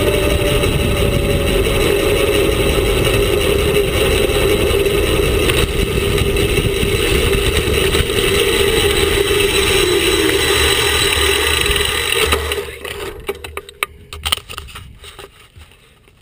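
Wind rush and knobby mountain-bike tyre hum picked up by a camera mounted on the front fork while riding. It is loud and steady, then fades away about three-quarters of the way through as the bike slows to a stop, leaving a few light clicks.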